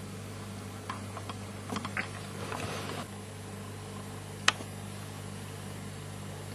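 Steady low mains hum with a few light clicks and rustles over the first three seconds, then one sharp click about four and a half seconds in.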